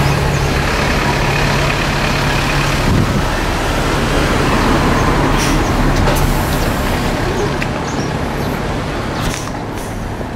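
Road traffic: a heavy vehicle's engine running with a steady low hum over road noise, fading near the end.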